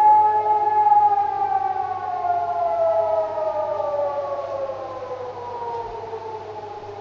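Austrian civil-defence siren at the end of the one-minute rising-and-falling alarm signal, winding down. Its pitch holds briefly, then slides steadily lower as the sound fades away.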